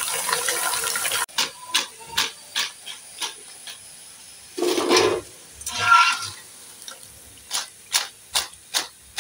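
Fryums sizzling in hot oil in a kadhai for about a second, then after a sudden cut, a run of light clicks and clatters as the crisp fried fryums are lifted out on a metal slotted spoon and dropped into a glass bowl.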